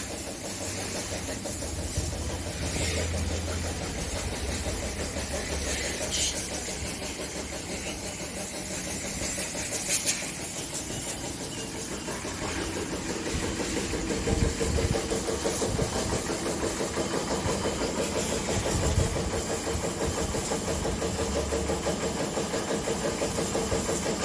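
Motorcycle being washed down: a washer pump motor runs steadily under the hiss of a water spray.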